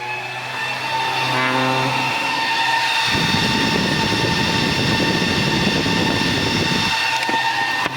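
Electric cooling fans on a car amplifier running with a steady, high whine. From about three seconds in to about seven seconds in, a rough rushing noise of moving air is added.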